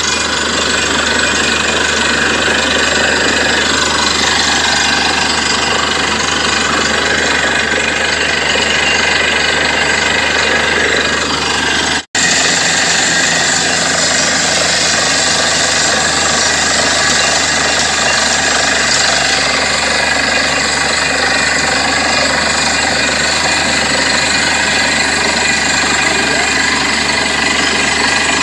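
Borewell drilling rig running steadily, its engine and drilling noise continuous and loud. The sound cuts out for an instant about twelve seconds in, then carries on unchanged.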